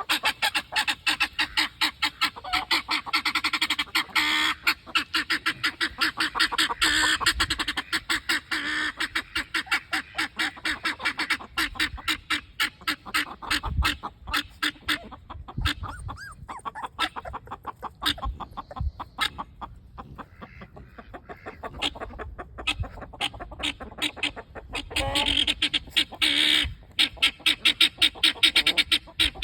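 Puppies yapping and yelping in a rapid, nonstop string of high calls, about four a second, easing off in the middle and getting louder again near the end.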